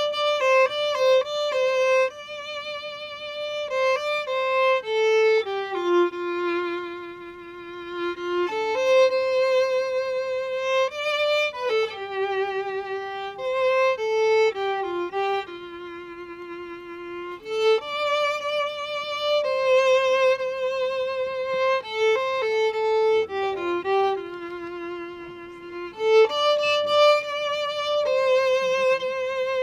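Solo violin playing a slow, lyrical melody, one note at a time, with vibrato on the long held notes.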